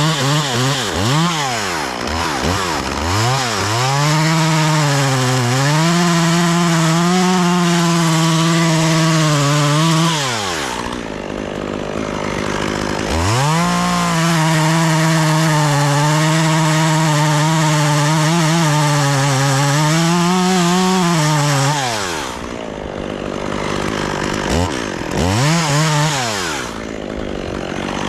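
Chainsaw revving in several quick blips, then held at full throttle through two long cuts of about six and eight seconds, dropping back between them and blipping again near the end.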